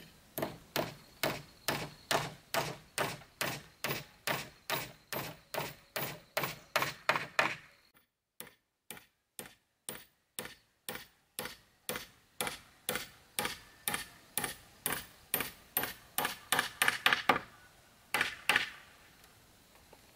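Hammer driving nails into wooden roof battens: a steady run of sharp strikes, nearly three a second, that breaks off briefly about eight seconds in, then another run that ends about seventeen seconds in, and one last strike after it.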